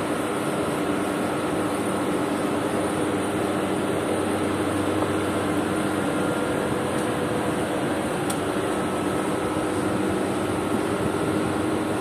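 A steady mechanical drone with a constant hum, unchanging in level.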